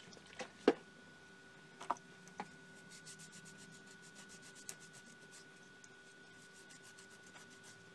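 A wad of tissue rubbed over the back of a small DB25 connector circuit board in quick, light scrubbing strokes, about five a second, after a few sharp clicks and knocks of the board being handled, the loudest under a second in.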